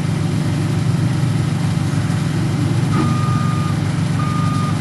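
Heavy boat-hauler truck's engine running steadily. About three seconds in its reversing alarm starts, with long beeps a little over a second apart as it backs under the boat.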